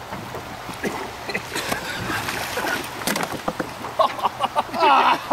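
Knocking, scraping and splashing as a man leans off a wooden dock and reaches into pond water. About four seconds in, a man's wavering cry without words becomes the loudest sound.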